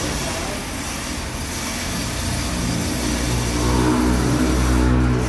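An engine running steadily, its low hum coming up and growing louder from about three seconds in, over a background hiss.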